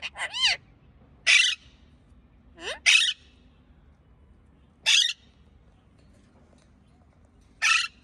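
An Alexandrine parakeet giving about five short, loud, harsh screeching calls, one every second or two with a longer pause before the last. The first call arches up and down in pitch.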